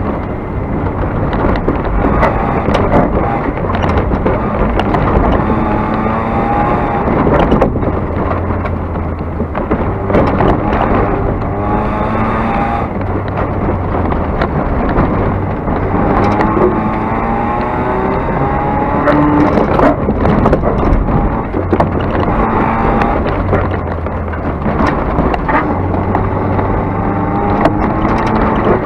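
Car engine heard from inside the cabin during a fast run on a dirt course, revving up and shifting gears over and over, the pitch climbing several times and falling back. Gravel and rough ground clatter and knock against the car throughout.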